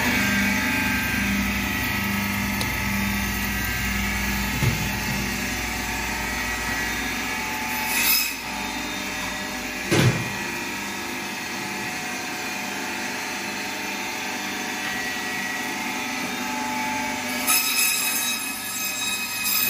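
Electric meat band saw running steadily, with two short knocks in the middle. Near the end the blade starts cutting into a whole duck and the sound gets louder and sharper.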